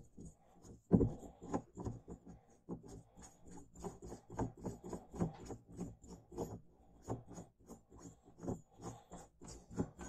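Aftermarket shift knob and its thread adapter being twisted by hand onto a manual gear lever's threaded shaft: irregular short scraping and rubbing sounds, two or three a second, with a sharper knock about a second in.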